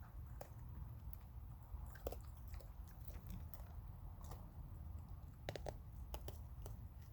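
Raccoon crunching and chewing hard dry food: irregular sharp crunches, a quick cluster of them about two-thirds of the way in, over a low steady rumble.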